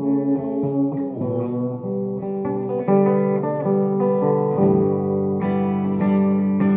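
Acoustic guitar played solo, ringing chords with a few sharper strums in the second half, with no singing.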